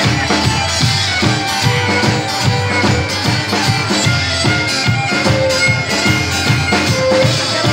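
Live band playing: a fiddle carries the melody over a steady drum-kit beat.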